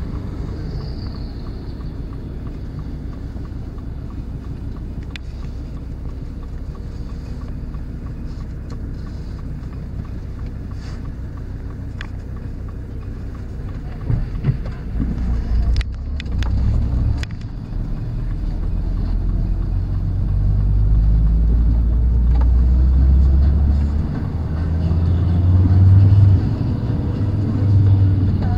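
Car engine and road noise heard from inside the cabin. From about halfway through, the engine grows louder and its pitch steps upward as the car accelerates, with a few sharp clicks in the middle.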